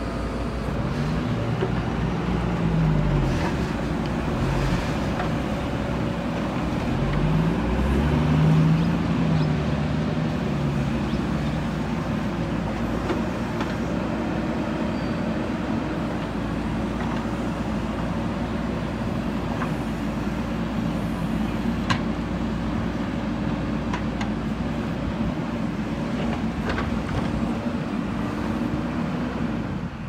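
A JCB 3DX backhoe loader's diesel engine runs steadily under load. Its revs rise and fall twice in the first ten seconds, and there is a single sharp click a little past the middle.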